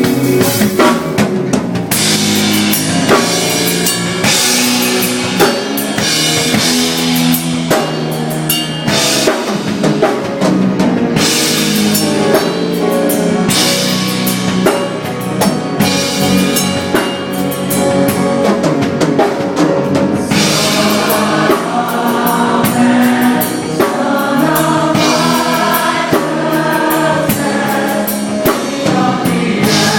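Gospel-style music played by a live band with a drum kit and cymbals, with a group of singers, who come through more strongly in the last third.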